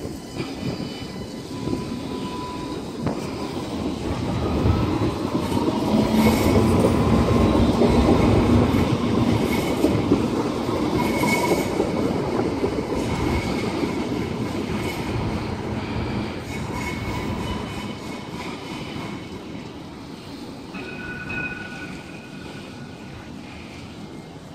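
Sydney light rail tram, an Alstom Citadis, running past the platform: a heavy rolling rumble that builds to its loudest around seven seconds in and then fades as the tram moves off. Faint thin high tones sound over it.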